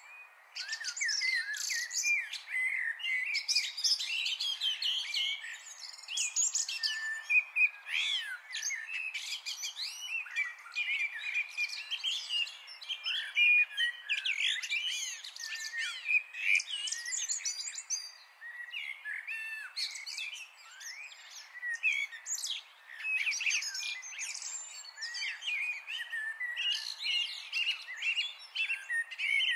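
Many birds singing and chirping at once, a dense chorus of overlapping short calls and trills over a faint steady hiss.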